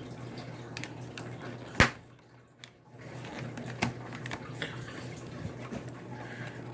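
Small clicks and knocks of plastic laptop parts being handled and pushed into place, with one sharper click about two seconds in, over a low steady hum.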